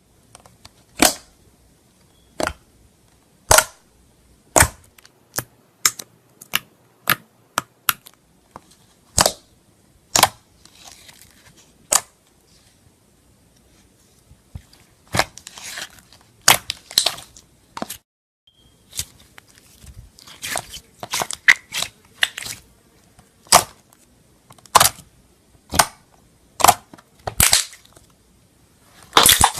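Slime being squeezed and poked by hand, giving a run of sharp, irregular pops as air pockets burst. The pops come roughly once a second, faster and closer together in the second half.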